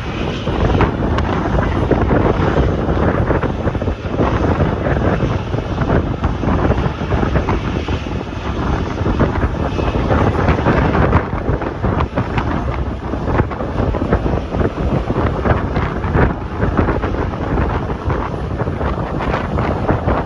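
Strong, gusty wind buffeting the microphone, a loud rumbling that rises and falls throughout.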